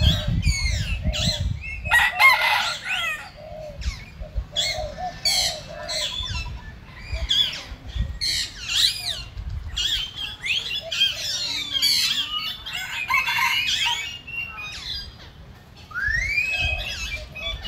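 Busy outdoor bird chorus: many overlapping chirps and short whistled calls, with one clear rising whistle near the end, over a low rumble that is strongest at the start.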